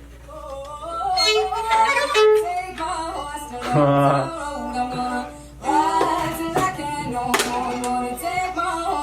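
Music: a woman singing a slow melody with violin, sustained notes moving step by step.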